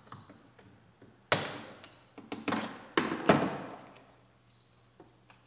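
Plastic wiring-harness clips being popped off a car's door: a series of sharp clicks and knocks, bunched between about one and three and a half seconds in.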